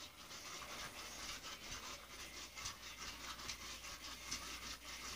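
Faint, steady scratchy whirring with irregular ticks from a battery-powered electronic ball dog toy running, its small motor spinning the attachment against the carpet.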